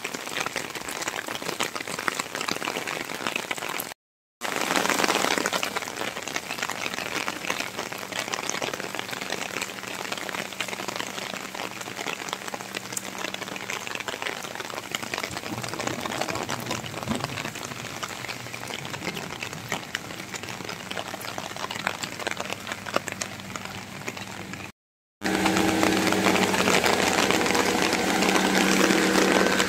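Rain falling on wet paving and plants: a steady, dense patter of drops. The sound cuts out twice, briefly. After the second break, a steady low mechanical hum joins the rain.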